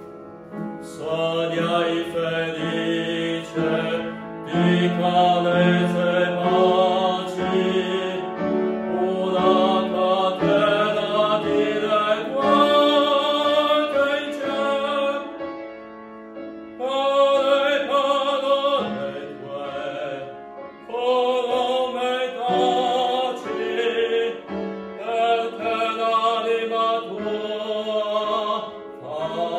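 A man singing in classical operatic style, long notes held with vibrato, accompanied by an upright piano.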